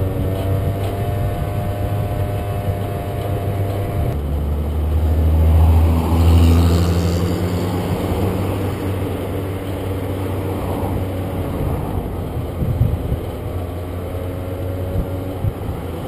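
Carbureted scooter engine running steadily uphill, its carburetor needle just lowered one notch and idle reset after it overheated. There is wind noise on the microphone. About five to seven seconds in the sound swells as a car overtakes.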